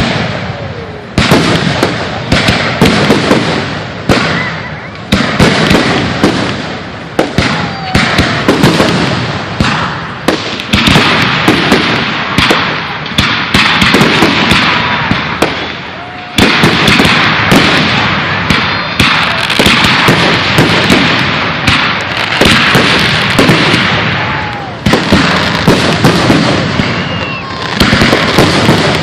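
Aerial fireworks shells going off in rapid succession: loud booms, one after another, with long stretches of crackling between them.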